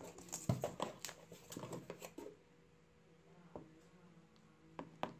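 Packaging being handled by hand: a quick run of light rustles, clicks and taps for about two seconds, then a few isolated taps.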